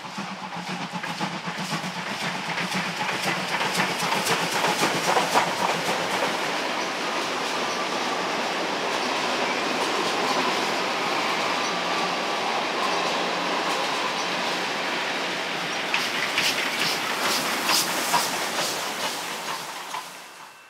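Trains passing close by: a suburban electric train on the near track passes the steam train, with wheels clattering over rail joints. The noise builds over the first few seconds, holds steady, and has a burst of sharp clicks near the end before fading away.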